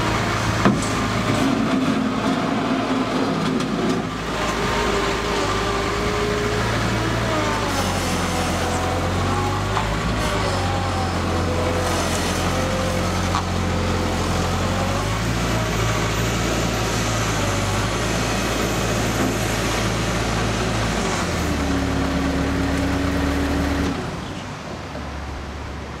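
Bobcat 751 skid steer loader's Kubota diesel engine running as the machine drives and turns, its note stepping up and down with a whine rising and falling over it. Near the end the engine drops to a lower, quieter note.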